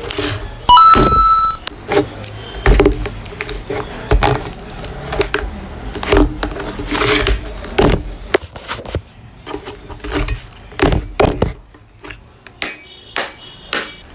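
Repeated blows of a machete hacking at a plastic power bank casing, sharp irregular strikes about one or two a second. A short electronic beep sounds about a second in.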